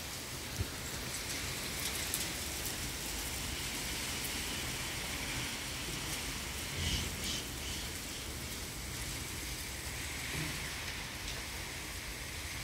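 Steady rain, an even hiss throughout, with a soft low thump about seven seconds in.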